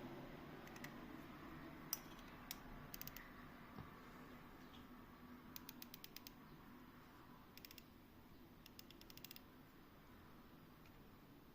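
Faint ticking of a cylinder-escapement pocket watch, coming in short runs of quick ticks with gaps between them, the watch running but very slowly. A couple of single louder clicks come a few seconds in.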